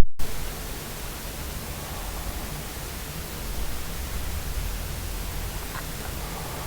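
Steady hiss with a low hum beneath it: the noise floor of the recording, with no other sound. It opens with a brief pop.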